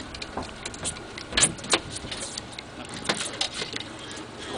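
Steady wind and boat-engine hiss on an offshore fishing boat, with scattered clicks and knocks from the rod and reel as a hooked mahi mahi is reeled down; the loudest knocks come about one and a half seconds in and again around three seconds.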